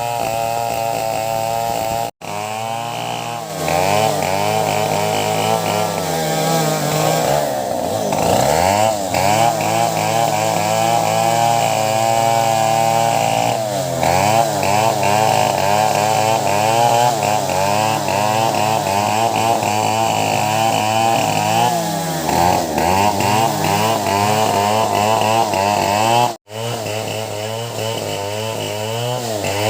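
Two STIHL chainsaws running hard through teak, their engine pitches wavering up and down against each other as they load in the cut. The sound cuts out for an instant twice, near the start and near the end.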